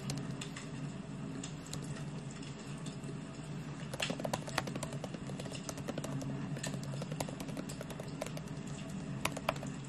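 Fingers typing on a laptop keyboard: a steady run of quick, soft key clicks, with a few louder taps about four seconds in and again near the end, over a low steady hum.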